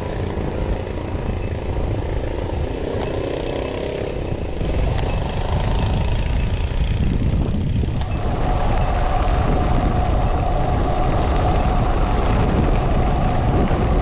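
Wind buffeting the microphone with road rumble while riding a bicycle. It is a steady rumble that grows louder about eight seconds in, where a steady hum joins it.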